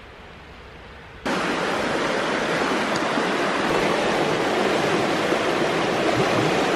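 Shallow rocky river rushing and splashing over stones, a steady loud rush of water that cuts in abruptly about a second in, after faint outdoor background.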